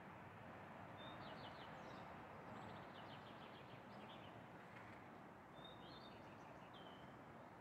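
Birds chirping and giving rapid high trills in three short bouts: about a second in, around three to four seconds, and near six seconds. Under them is a faint, steady background of city noise.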